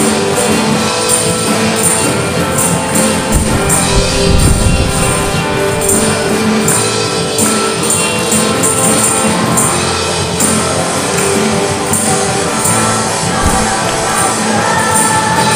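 A small live band playing a song: group singing over strummed acoustic guitar, bass and drum kit, with a tambourine jingling on a steady beat.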